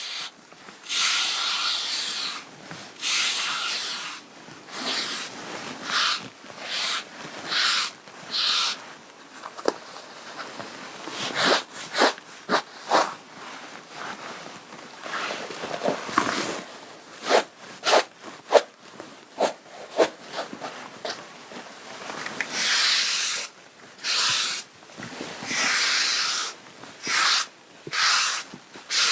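Lint brush stroked over the fabric of a garment again and again, each stroke a rough brushing hiss. The strokes are longer near the start and end and quicker and shorter in the middle.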